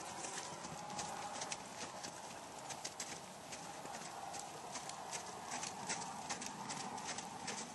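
Hoofbeats of a sorrel Quarter Horse gelding moving under saddle over packed snow and ice: a run of sharp, irregular clicks.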